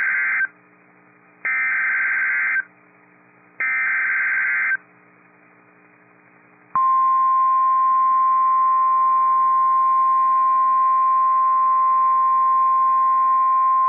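NOAA Weather Radio Emergency Alert System signalling: short bursts of SAME digital header data, each about a second long and about two seconds apart, then about seven seconds in the steady 1050 Hz warning alarm tone, which marks a warning-level alert, here a tornado warning.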